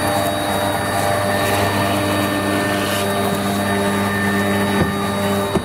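CNC router spindle milling a rotating foam block: a steady machine hum and whine with several held tones that shift in pitch a few times as the cut moves, and a brief dip near the end.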